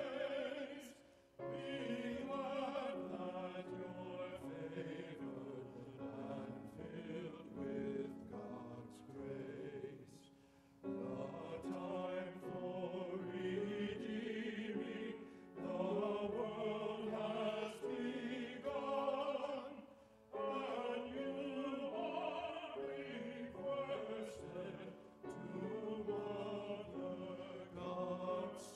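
Church choir singing a carol, in phrases with a few short breaks between them.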